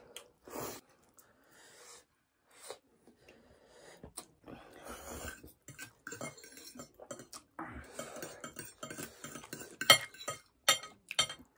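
Metal forks clinking and scraping against ceramic plates. Only faint sounds in the first few seconds, then frequent short clinks from about halfway, with a few sharp, louder clinks near the end.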